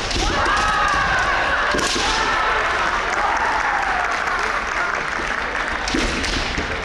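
Kendo competitors' kiai: long, high-pitched drawn-out shouts that rise and fall, through the first few seconds. A few sharp knocks from shinai strikes or foot stamps on the wooden floor break in, one near the middle and one near the end.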